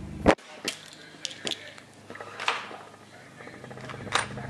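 A few sharp clicks and knocks from handling a dried-out marker on a stone countertop, the loudest about a third of a second in and another near the end, with a short rustle in between.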